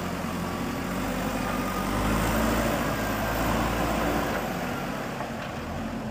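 Diesel engine of a JCB 3DX backhoe loader running as it works. It grows louder about two seconds in, as if taking load, and eases back after about four seconds.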